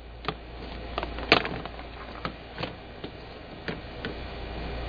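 Rubber retainer spline being pulled out of a window screen frame's groove: a string of irregular light clicks and snaps, one louder snap about a second in.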